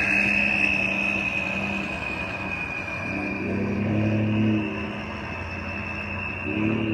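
2013 Ford F-150's 3.5L EcoBoost twin-turbo V6 running with a loud, steady high-pitched turbo whistle over the engine and exhaust note. The whistle sags a little in pitch and climbs again near the end, and the engine note swells briefly about four seconds in.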